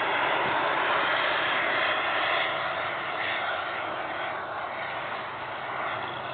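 Wren 160 model gas turbine of a radio-controlled jet running on the landing approach: a steady jet hiss that fades gradually as the plane comes in.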